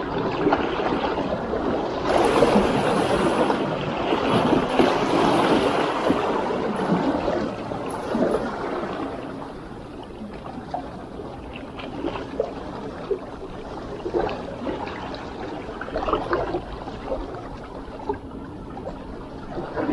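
Small sea waves washing and trickling among shoreline rocks, louder through the first half and then settling, with a few light clicks later on.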